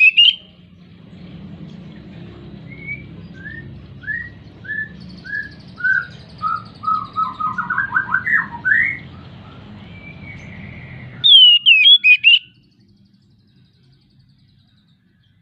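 Oriental magpie-robin (kacer) singing, a bird in high breeding condition. A loud burst of sharp whistled notes opens it, then comes a series of short descending whistles that speed up into a quick run, and about 11 seconds in there is another loud burst of sharp notes. After that the song stops.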